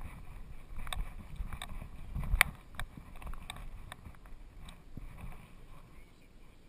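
Irregular clicks and knocks with low rumbling from a fawn Doberman moving over bare rock, picked up by a GoPro strapped to its back; the loudest knock comes about two and a half seconds in, and the sounds die away near the end.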